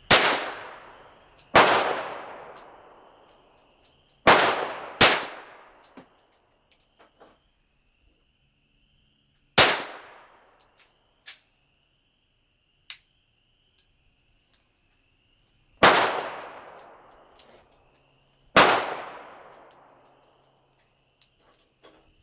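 Seven gunshots from a .32 S&W top-break revolver, loud and sharp, each with an echoing tail, fired at uneven intervals with a few light clicks in between. A faint, steady high insect chirring runs underneath.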